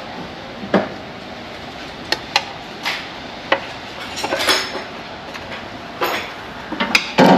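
Metal hand tools clinking and knocking against steel suspension parts during removal: irregular single clinks, a short cluster of them midway, and a heavier knock near the end.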